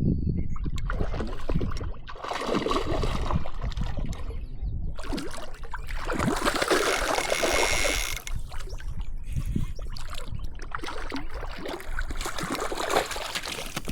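Water splashing and trickling in uneven bursts, loudest for about two seconds around six seconds in.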